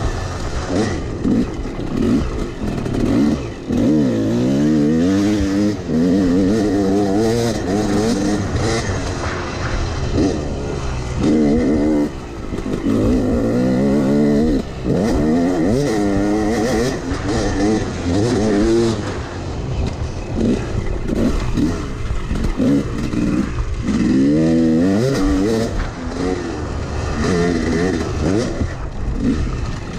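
Yamaha YZ250X single-cylinder two-stroke dirt bike engine revving up and down over and over as the bike is ridden along a dirt trail, heard from the rider's seat.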